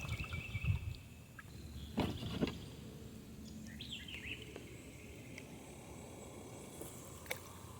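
Faint outdoor pond ambience with a low, steady rumble of noise. Two knocks come about two seconds in, and a bird gives a short falling chirp about four seconds in.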